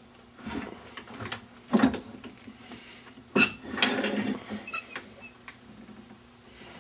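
A woodturning lathe's metal tool rest being moved and set in place: two sharp metal knocks about a second and a half apart, with some scraping and handling noise after the second.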